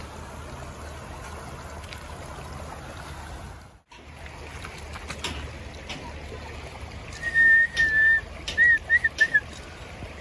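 Steady rush of a shallow river running over pebbles, broken by a short gap; then a person whistling loudly, one held high note followed by a few short whistled chirps near the end.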